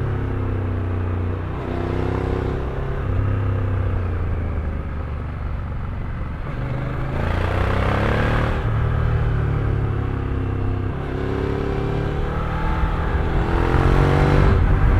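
Motor vehicle engine running under way, its revs rising and falling several times as it accelerates and eases off.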